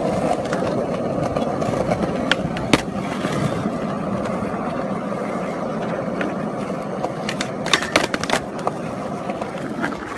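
Skateboard wheels rolling over smooth pavement, a steady rumble, with sharp clacks of the board about three seconds in and several close together near eight seconds.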